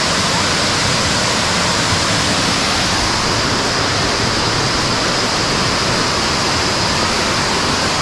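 A waterfall pouring into its pool, with the river below it: a steady, unbroken rush of falling water.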